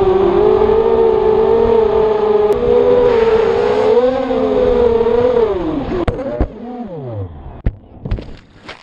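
FPV racing quadcopter's electric motors whining at a steady, slightly wavering pitch. About six seconds in the whine drops steeply in pitch as the motors wind down, with a few sharp clacks.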